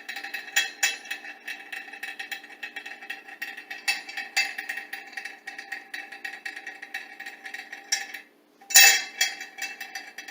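A metal washer rattling and clicking as it spins down a threaded steel rod, with fast irregular ticks and a steady metallic ring. It lands with a sharp clank near the end.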